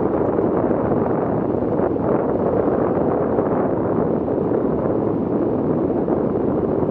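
Steady wind rush buffeting an action camera mounted on the roof of a moving vehicle, with the vehicle's road noise underneath.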